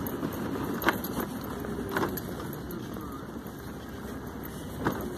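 Class 3 electric mobility scooter rolling along a paved promenade: steady motor and tyre noise with a jangling rattle and a few sharp clicks.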